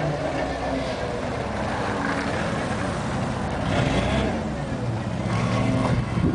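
Yale GLP110 propane forklift's engine running as it drives and turns, its pitch rising and falling with the throttle.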